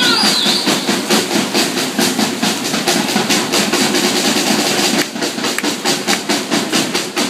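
Crowd at a swimming race cheering over a steady noisy din, with rhythmic clapping about three beats a second.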